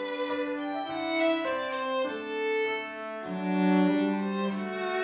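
Background music of bowed strings, violin and cello, playing held notes that change every second or so.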